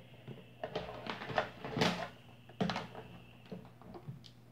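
Electrical wires and their plastic connectors being handled and set down: a few scattered clicks and rustles, most in the first three seconds, over a faint steady hum.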